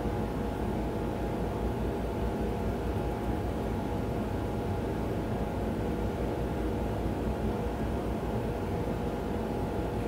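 A steady machine hum with a hiss over it and a few faint steady tones, unchanging throughout: a running appliance such as room ventilation.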